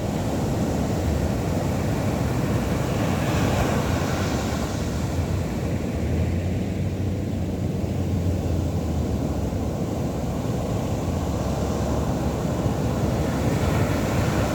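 Big ocean waves breaking and washing up the beach, a steady roar that swells twice, with wind rumbling on the microphone underneath.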